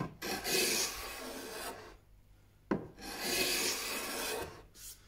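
Sandpaper rubbed by hand along a plywood edge to take off a sharp corner: two long strokes of about a second and a half each, with a short pause and a single light knock between them.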